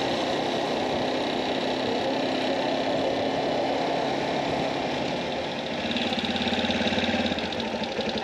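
Italika V200 motorcycle engine running on the road, with a steady rush of wind and road noise. About six seconds in the engine note gets louder and turns into an even pulsing beat.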